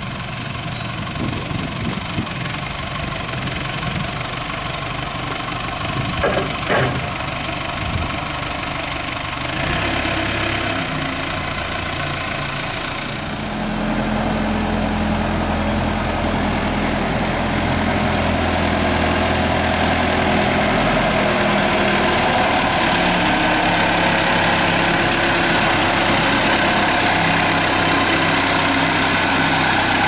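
Engine of a Sellick SD-80 rough-terrain forklift running steadily as it carries a log. It gets louder about halfway through, then holds steady.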